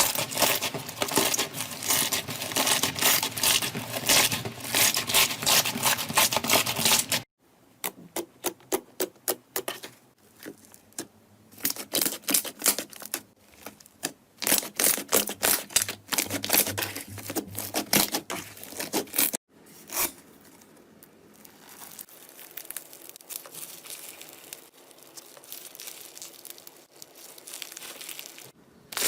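Slime being squeezed and poked by hand, making crackling pops and squishes. A dense run of sharp crackles gives way after about seven seconds to separate pops and clicks. Near the end a softer, quieter crackle follows.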